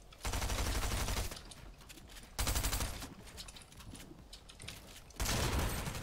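Video-game automatic gunfire: three bursts of rapid fire, each around a second long, a couple of seconds apart.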